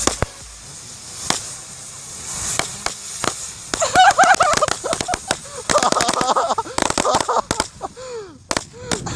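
A bunch of pyrotechnic 'beetle' spinners (жуки) going off at once. Scattered pops at first, then from about four seconds in rapid cracking mixed with warbling and falling whistles. They spin poorly, bogged down in the snow.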